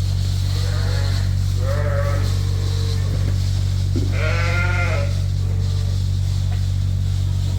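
Sheep bleating at feeding time: about five calls, the longest and loudest around four seconds in. A steady low hum runs underneath.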